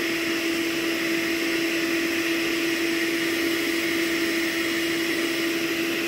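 Hoover OnePWR Spotless Go cordless portable carpet and upholstery cleaner running steadily, its suction motor giving a constant hum with one steady tone and a hiss above it. The machine is quiet for a carpet cleaner.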